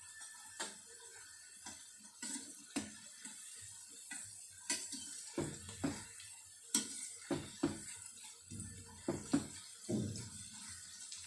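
Onion pakoda fritters deep-frying in hot oil in a stainless steel kadai, the oil sizzling steadily. Repeated sharp clinks and scrapes of a metal slotted spoon against the pan as the fritters are stirred, more of them in the second half.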